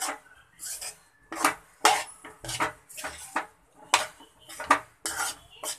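Metal spatula scraping and knocking against a metal kadhai as gram flour (besan) is stirred and roasted in ghee, in a quick, uneven run of two or three strokes a second.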